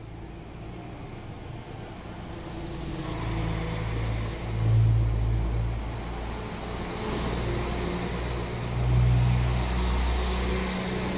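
Northern class 195 diesel multiple unit passing close along the platform, its underfloor diesel engines running with a low, steady note. The sound grows louder from about two seconds in, swelling twice as engine-carrying carriages go by.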